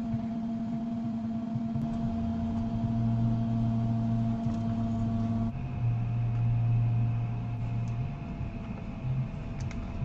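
Steady electrical hum and fan drone of repair-bench equipment, a low drone with a few steady tones that shifts about halfway through. A few small clicks near the end as a USB-C power cable is plugged into the logic board.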